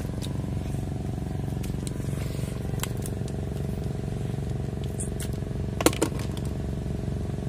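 A steady, unchanging engine drone in the background, with a few light clicks and one sharp knock or splash about six seconds in as hands dig through shallow mud and water.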